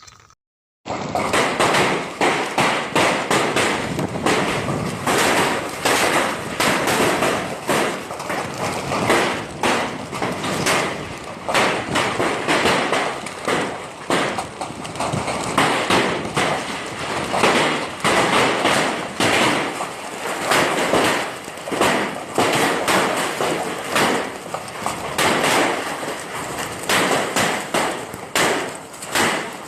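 Hailstones pelting down in a dense, irregular clatter of hard hits, starting abruptly about a second in.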